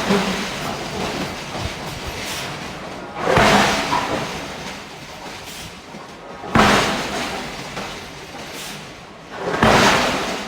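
Hydraulic forging hammer striking steel three times, about three seconds apart, each heavy blow dying away over a couple of seconds.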